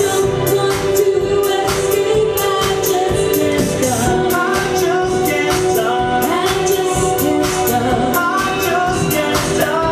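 Live band playing a song with sung vocals over a steady drum beat.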